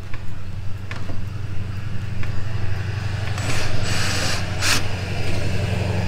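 Black+Decker cordless drill driving a screw into an RV door's metal strike plate, one short run of about a second and a half a little past the middle. A steady low hum runs underneath throughout.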